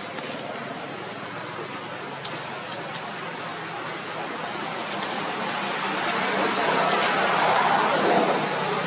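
Steady outdoor background noise: a broad hiss with a thin, high, steady insect drone over it. The hiss swells louder about seven to eight seconds in, then eases.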